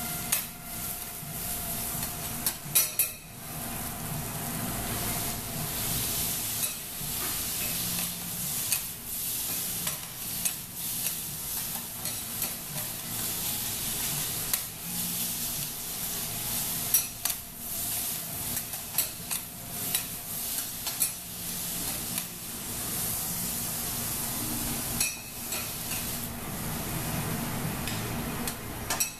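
Food sizzling on a hot teppanyaki steel griddle, with metal spatulas scraping, chopping and tapping on the plate in frequent sharp clicks.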